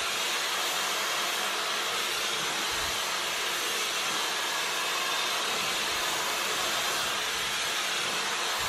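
Dyson Supersonic hair dryer with its comb attachment, running steadily: an even rush of blown air that holds the same level throughout.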